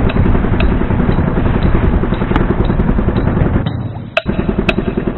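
Small boat engine running steadily as the wooden sampan moves across open water, with wind buffeting the microphone. A little before four seconds in the sound briefly drops away, then returns with a sharp knock.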